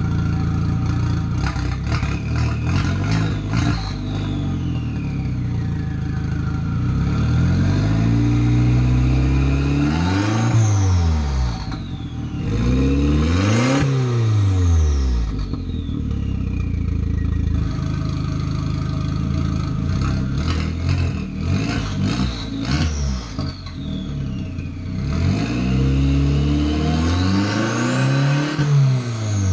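VW 1.8T turbocharged four-cylinder engine running with only the new downpipe fitted and no exhaust behind it, revved up and let fall back three times. Between the revs it runs at idle with a rapid clatter.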